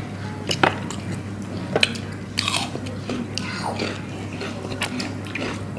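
Close-up eating sounds: biting into and chewing grilled chicken wings, with two sharp crunchy bites about half a second and just under two seconds in, then chewing.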